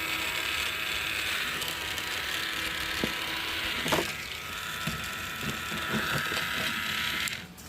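Small push-button fuel transfer pump running with a steady buzz as it sucks fuel out of a lawnmower's tank, with a couple of knocks midway; it cuts off suddenly near the end.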